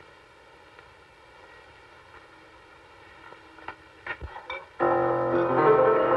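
A quiet stretch with a few light clicks and knocks, then keyboard music starts suddenly near the end, playing several sustained notes at once.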